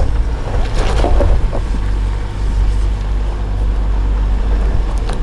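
Toyota Land Cruiser 70 Series Troop Carrier, with its four-cylinder turbo-diesel and automatic gearbox, driving off-road over a rutted dirt track: a steady low engine rumble, with a few knocks and crunches from the tyres and running gear, the loudest about a second in.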